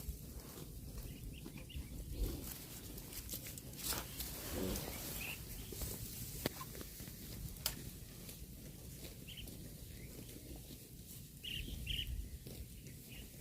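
Cattle grazing: scattered sharp crunches and rips of grass being torn and chewed, with a few short bird chirps.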